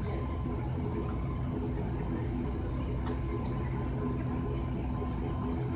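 Steady drone of a high-wing turboprop airliner's engines and propellers heard inside the passenger cabin: a low hum made of several steady tones with a faint higher whine over it.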